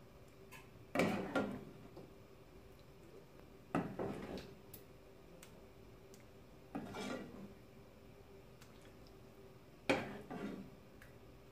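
Metal spoon clinking against the pot and serving dish as curry is spooned out, four times about every three seconds, each a quick pair of clinks with a soft wet scrape.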